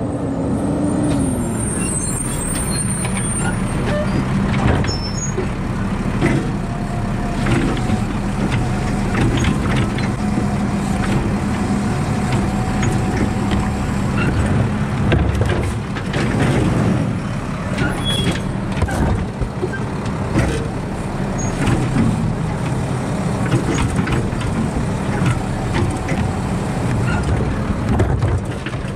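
Automated side-loader garbage truck running close by while its hydraulic arm grabs, lifts and dumps wheeled trash carts. A steady diesel drone runs under repeated knocks and clattering from the carts and the falling trash.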